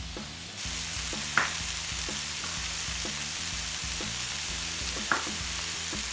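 Chopped vegetables frying in olive oil in a steel pan, a steady sizzle that comes up about half a second in, with a couple of short knife strokes on a wooden cutting board.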